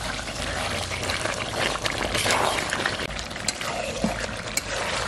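Thick chicken curry sizzling and bubbling in a steel kadai, with a spatula stirring through it and a few sharp clicks of the spatula against the pan in the second half. The meat is fried down and nearly done.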